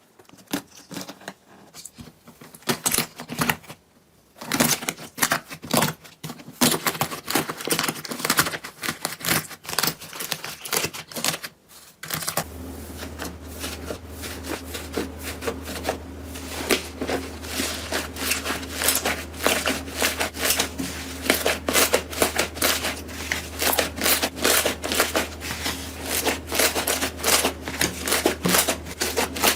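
Slime being pressed, poked and squeezed by hand, making a dense run of crackling and popping clicks. About twelve seconds in it changes to another clip, with a steady low hum under the crackling.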